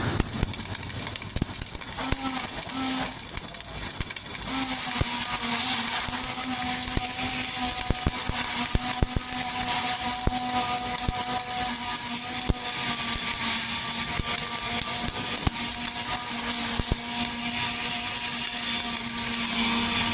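Flux-cored arc welding: a steady crackling sizzle with many small pops, over a steady hum that comes in about two seconds in.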